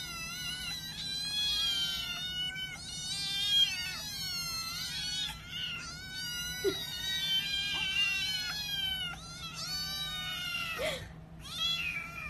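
A litter of small black kittens mewing nonstop, several high-pitched mews overlapping at once.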